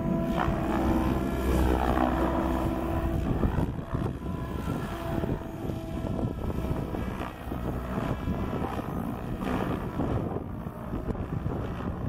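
SAB Goblin 770 electric RC helicopter in flight: a whine from its motor and rotor blades that keeps changing pitch as it manoeuvres. It is louder for the first few seconds, then settles to a rougher, quieter hum.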